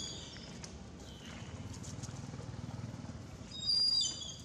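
Baby macaque giving high-pitched squeals: a faint short one at the start and a loud one of about half a second near the end, with low scuffling noise on the dry ground in between.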